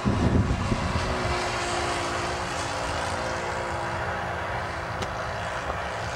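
Radio-controlled 40-size Cub model plane in flight, its O.S. four-stroke engine and propeller droning steadily.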